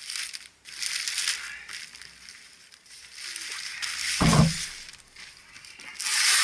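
A black plastic bag wrapped around a cardboard box is cut and pulled off, the plastic rustling and crinkling in bursts. A dull thump a little over four seconds in as the box is handled.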